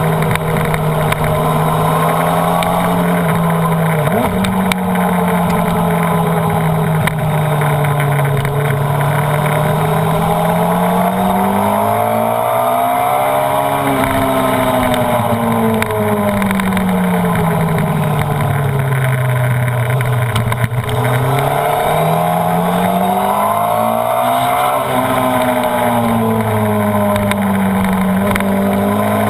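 Honda CBR929RR's 929 cc inline-four engine running at speed, its pitch sagging slowly at first, then climbing and dropping about three times as the rider accelerates and eases off. A steady rush of wind over the microphone runs underneath.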